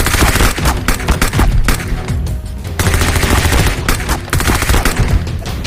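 Rapid volleys of shots like machine-gun fire, over background music.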